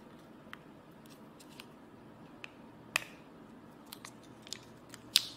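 Plastic wrap on a roll of washi tape crinkling and clicking as fingers pick at it to start peeling it off: scattered small sharp clicks, the loudest about three seconds in and just before the end.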